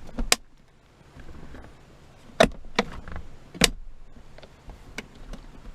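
Replacement latch of a 2012 Ram 1500 center console lid clicking as the lid is worked open and shut, the new latch catching and releasing. About half a dozen sharp clicks, the loudest about two and a half and three and a half seconds in.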